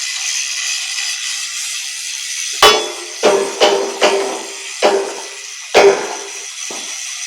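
Steady crackling hiss of a stick-welding arc, joined from about two and a half seconds in by seven irregular hammer blows on steel, each leaving a short metallic ring.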